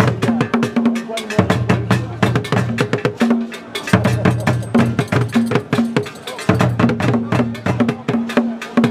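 Music driven by fast, dense percussion: drums and a sharp wood-block-like click, over a repeating bass line that drops out briefly a few times.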